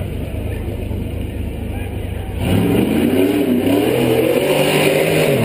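Off-road hill-climb buggy's engine running at low revs, then about two seconds in revving hard under load as it climbs the dirt hill, the pitch rising and wavering before dropping near the end.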